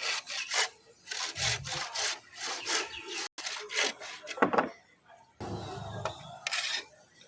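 Saw cutting through wood in repeated back-and-forth strokes.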